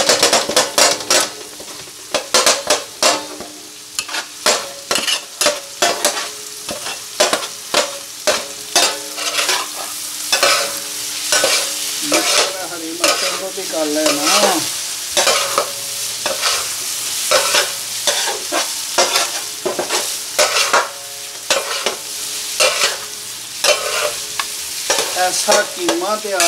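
Flat metal spatula scraping and striking an iron tawa (lohi) in quick, repeated strokes, with minced meat sizzling as it fries on the griddle.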